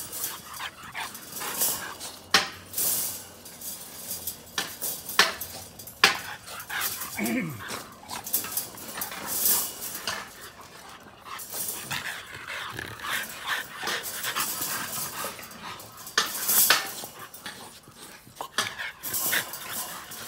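Micro exotic bully dogs play-fighting, with short barks and yips, and the wire playpen rattling with sharp irregular clanks as they bump into it.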